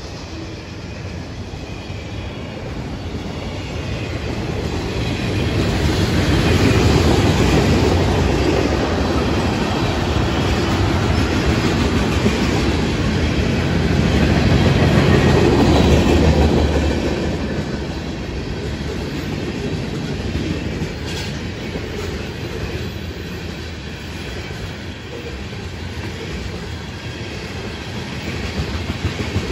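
Freight cars of a Florida East Coast Railway train rolling past: autoracks, open hoppers and tank cars, their steel wheels rumbling on the rails. The sound swells louder twice, about a quarter and about halfway through.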